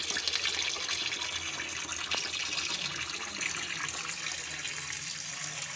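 Tap water running steadily into a kitchen sink while raw chicken pieces are washed under it.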